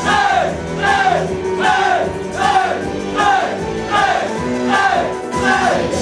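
Pop backing track playing while an audience shouts a rhythmic chant in time with the beat, one short rising-then-falling shout roughly every 0.8 s, about eight times.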